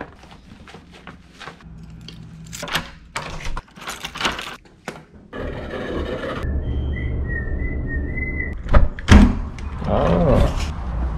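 Scattered rustling and handling noises while getting shoes on, then a steady elevator hum with a faint wavering whine for a few seconds, then two heavy thunks from a metal door being pushed open.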